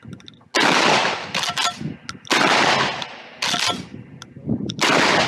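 Templeton Arms T1000 12-gauge shotgun fired four times, about one to one and a half seconds apart. Each blast trails off in a fading echo, and there are short sharp clicks between the shots.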